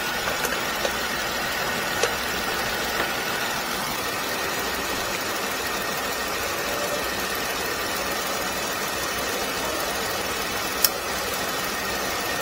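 2014 Jeep Wrangler's 3.6-litre V6 idling steadily at operating temperature, test-run after a radiator replacement with no sign of overheating. A few light clicks sound over it, the sharpest near the end.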